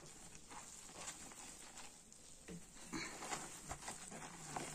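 Hands kneading and squeezing a stiff flour-and-baking-soda dough in a plastic basin: faint, irregular soft pats and rustles of crumbly dough and loose flour.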